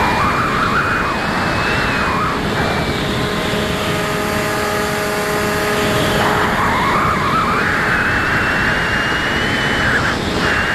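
Onboard sound of a Bixler RC plane in flight: its electric motor and propeller whine steadily while air rushes past the on-board camera. The motor pitch drifts up and down with throttle, and the wind noise swells about two-thirds of the way through.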